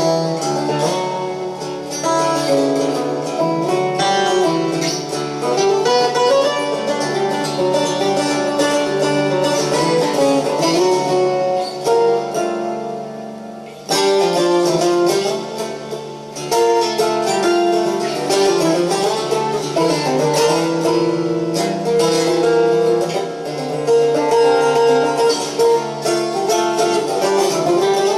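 Solo Bulgarian tambura, a long-necked fretted folk lute, played with a fast picked melody over ringing lower strings. About halfway through, the playing fades for a moment and then comes back in with a strong stroke. It is recorded on a very old mobile phone, so it sounds thin with almost no bass.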